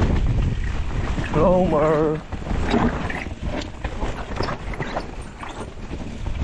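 Mountain bike riding down a wet trail: rushing wind on the microphone with rattling and clatter from the bike over the ground. About a second and a half in, the rider gives a short wavering vocal call, his voice shaken by the bumps.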